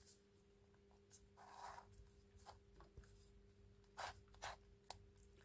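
Faint handling of a plastic twisty puzzle cube: a soft rub of fingers and plastic, then a few small clicks as the pieces are pushed against each other, the loudest about four seconds in. Otherwise near silence with a faint steady hum.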